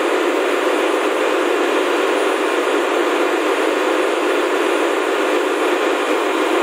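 Steady, loud machinery noise of a ship's engine room, an even hum and hiss with no rhythm or knocks.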